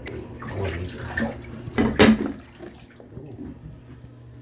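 Shallow bathwater splashing and sloshing in a bathtub as a wet cat's paws move in it and a hand holds her, with a louder splash about two seconds in.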